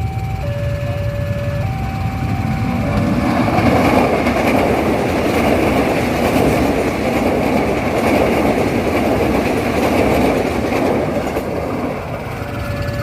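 A railway level-crossing siren alternating between two tones, a higher and a lower one, changing about every second. From about three seconds in, a passing train's running noise covers the siren. The two-tone siren is heard again near the end.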